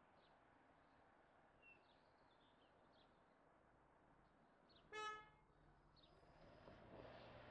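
A single short car horn toot about five seconds in, against near-silent background with a few faint high chirps.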